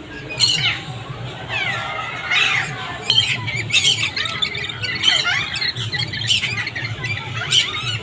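Parrots squawking: a busy run of short, harsh calls and screeches, some sliding up or down in pitch.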